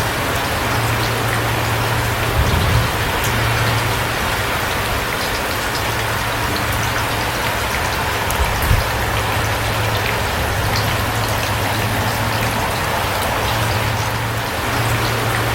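Steady rain falling, an even hiss with individual drops ticking through it. A low steady hum runs underneath and breaks off now and then.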